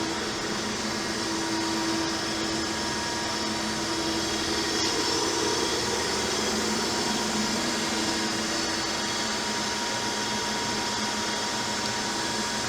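Cincinnati Milacron Model DR centerless grinder running: a steady machine hum with a few steady tones from its spinning wheel spindle, described as a nice quiet spindle.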